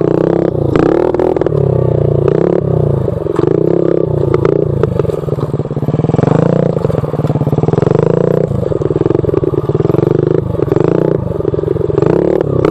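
Honda Z50R pit bike's small single-cylinder four-stroke engine running under throttle, its pitch rising and falling again and again as the throttle is worked. Short clattering knocks run through it as the bike rides over rough bare rock.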